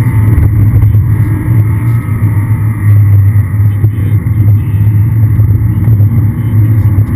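Aston Martin V8 Vantage's V8 engine running hard on a track lap, heard on board the car. It stays loud throughout, with its level dipping briefly a few times.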